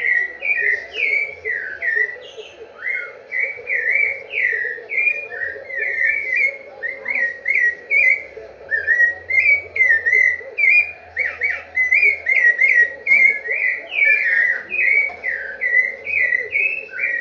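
Rufous-bellied thrush (sabiá-laranjeira) singing: an unbroken run of short, clear whistled notes, about three a second.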